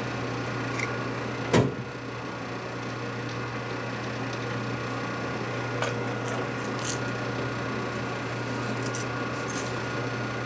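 Steady low hum of running workshop machinery, with one sharp knock about a second and a half in and a few light metallic clicks later.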